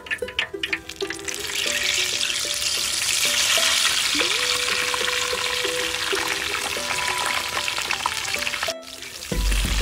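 A whole jackfruit deep-frying in a wok of hot oil, the oil sizzling loudly from about a second in, when the fruit goes into the oil, over background music. The sizzle breaks off just before the end.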